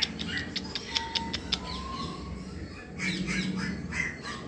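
Birds squawking and chirping, with a quick run of sharp clicks, about six a second, for the first second and a half.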